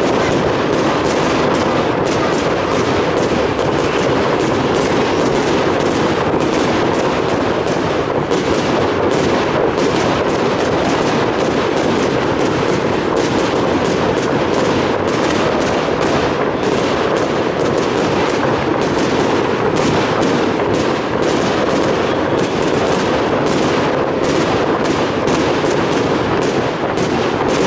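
Firework display going off in a dense, unbroken run of bangs and crackles from bursting shells and rising comets.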